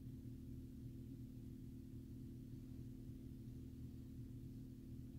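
A steady low hum made of several steady tones, with a faint hiss above it and no thunder.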